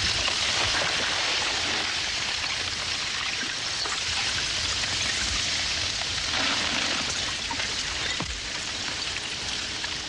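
River ice breaking up in the spring thaw, with floes grinding and shoving against the bank. It makes a steady hiss of many small clinks and crunches, with a sharper crack about eight seconds in.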